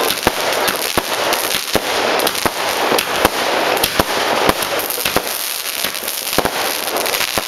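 Epic Fireworks Crescendo single-ignition barrage cake firing: a steady run of sharp shots and bursts, about one or two a second, over continuous crackling.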